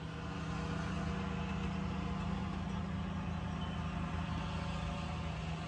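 A steady, low mechanical hum, like a motor or engine running without change.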